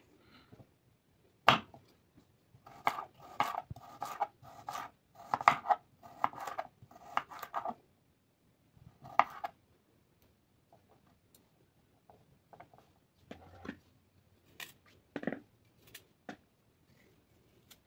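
Kitchen knife chopping carrots into cubes on a wooden cutting board. A quick run of sharp knife strikes on the board is followed by scattered, lighter taps and cuts.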